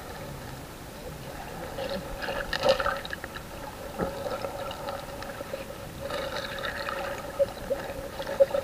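Water sloshing and splashing heard through a camera held underwater, with a faint steady hum and a single knock about four seconds in.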